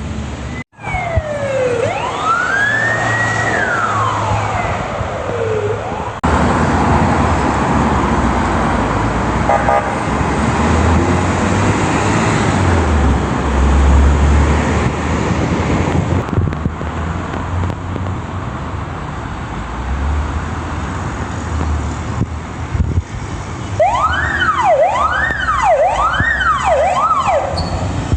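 Ambulance siren in wail mode, one slow sweep down, up and down again. Then a long stretch of vehicle engine and road noise with no siren. Near the end the siren comes back with quicker rising and falling sweeps, about one a second.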